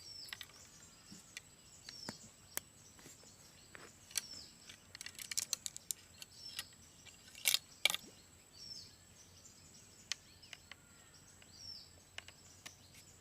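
Outdoor ambience with a bird repeating a short falling chirp every couple of seconds, over a faint steady high tone. Scattered clicks and taps, with a louder pair of clicks about seven and a half seconds in.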